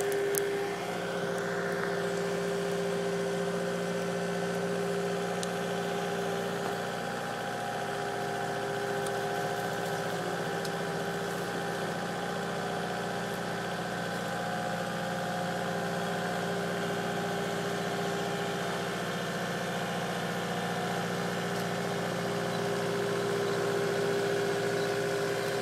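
Bobcat T300 compact track loader's diesel engine running steadily at a fairly even pitch while the machine carries a car on its forks.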